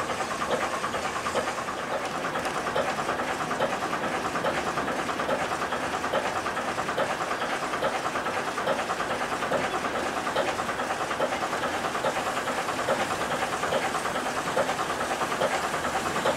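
Engine of a small Ransomes shunting locomotive running steadily at idle, with a faint regular tick about twice a second.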